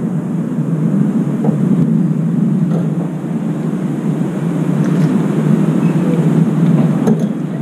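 Steady low rumble of urban outdoor background noise, like distant traffic around apartment blocks, with a few faint ticks.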